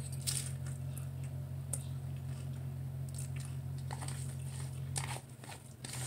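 Close-up chewing of a mouthful of instant ramen noodles, with a few short, sharp crunches and mouth clicks scattered through it. A steady low hum underneath cuts out about five seconds in.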